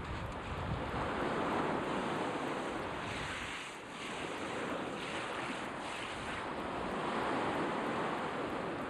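Black Sea surf washing onto the shore, swelling about a second in and again around seven seconds, with some wind noise on the microphone.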